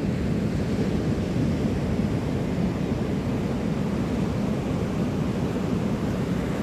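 Ocean surf breaking on the beach, heard as a steady low rumble, with wind buffeting the microphone.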